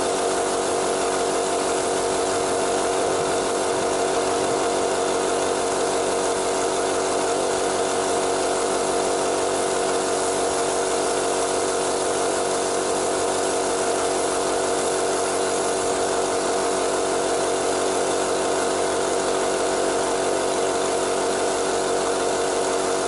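Air compressor running steadily, with a continuous hum and the hiss of a compressed-air spray gun spraying paint.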